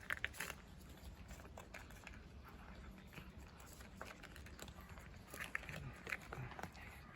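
Cats eating dry food: faint, irregular crunching and small clicks, with a few louder crunches near the start and again about six seconds in.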